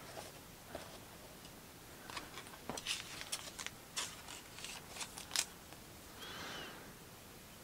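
Trading cards being handled and set down on a tabletop: a run of light clicks and taps, then a soft swish near the end.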